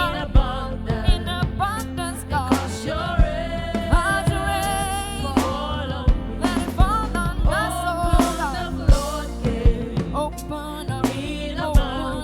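Live gospel worship music: a band with drums and a sustained bass plays under drawn-out, gliding sung melody lines, with drum hits at a steady beat.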